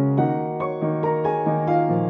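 Background piano music, a steady even run of notes at about four or five a second.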